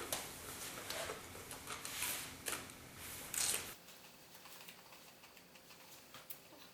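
Crisp, irregular crunching and chewing of a raw cucumber being eaten fast, with a louder crunch about three and a half seconds in; after that it turns much quieter, with only faint ticks.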